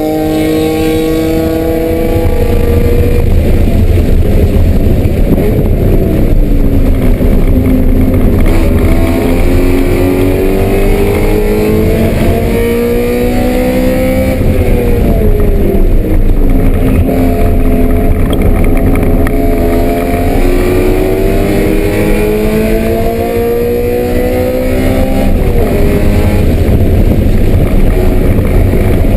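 BMW M3 race car's engine under hard acceleration on track. Its pitch climbs slowly through long pulls and falls back three times at gear changes: a little after the first five seconds, about halfway through, and near the end.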